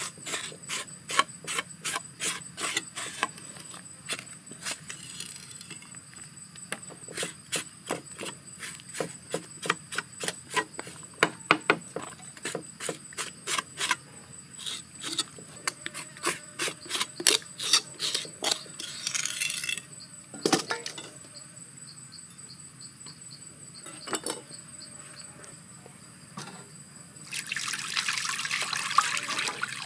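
Large kitchen knife cutting and skinning a raw stingray on a wooden chopping board: a long run of short sharp strokes, a few a second, thinning out after the middle. Near the end, water gushes from a container into a steel bowl. Insects keep up a steady high-pitched drone.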